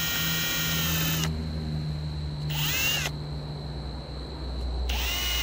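Cordless drill boring into a pine 2x4, its motor whining in three bursts with pauses between: a second-long run at the start, a short one about halfway, and another starting near the end.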